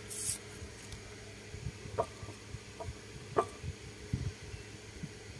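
Quiet handling sounds: a brief plastic rustle at the start as a knife is taken from a zip bag, then a few light clicks and taps as the knife and mango are handled on the plate.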